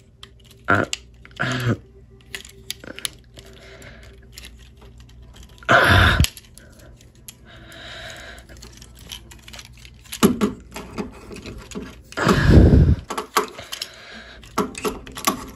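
Plastic parts of a Transformers Studio Series Battletrap figure clicking and rattling as it is handled and twisted through its transformation, with two louder handling bumps, about six seconds in and again near twelve seconds.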